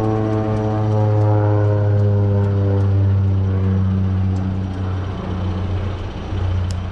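Small propeller airplane flying over, its engine drone falling slightly in pitch and fading out after about four seconds, with a low steady hum continuing underneath.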